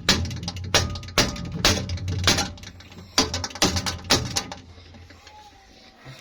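Repeated heavy knocks on the refrigerator's body, about two a second with a short pause near the middle, stopping about four and a half seconds in.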